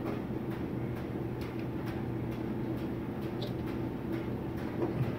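Steady low electrical hum, with faint scattered clicks and taps as the wiring plug of a furnace inducer motor is handled.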